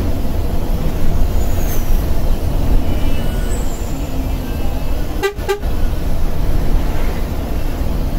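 Steady low engine and road rumble inside a moving intercity bus, with a short double toot of a vehicle horn a little past the middle.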